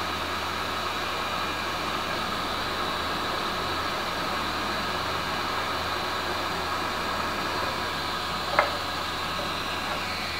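Steady blowing hiss of a hot-air rework station used to desolder an IC from a circuit board, with a faint hum under it. One light click about eight and a half seconds in.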